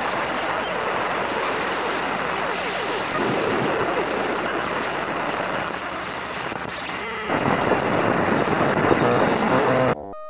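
Loud, even rushing noise like static or heavily distorted audio. It grows louder about seven seconds in and cuts off abruptly near the end.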